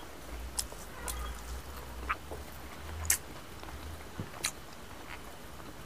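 Quiet eating with bare hands: a few scattered soft clicks and smacks, about one a second, from chewing and from fingers working rice and pork curry on a banana leaf.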